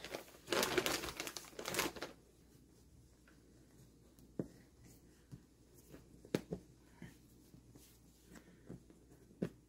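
Rustling of polyester fiberfill stuffing and the cloth doll body being handled, loudest in the first two seconds, then a few soft taps and clicks as the vinyl doll head is handled.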